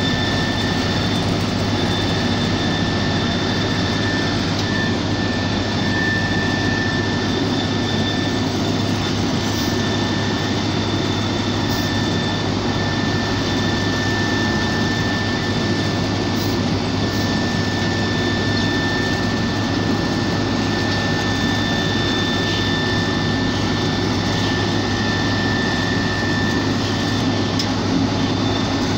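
Heavy diesel road-construction machinery running steadily, a continuous engine drone with a thin, steady high whine over it.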